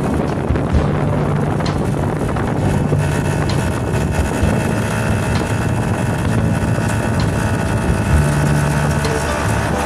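Small motorcycle with a sidecar running at a steady road speed, its engine a constant low hum under wind noise on the microphone and road noise.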